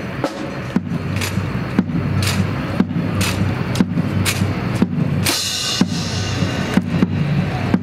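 A steady beat of sharp strikes, about two a second, keeping the marching cadence for a rifle drill squad, over a low steady hum.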